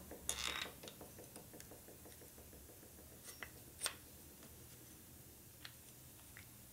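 A few faint, separate clicks and light taps of small metal parts being handled, as an external hone is taken apart.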